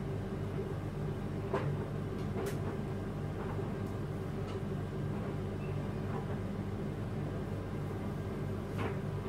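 A steady low hum, like a running motor or appliance, with a few faint light clicks scattered through it.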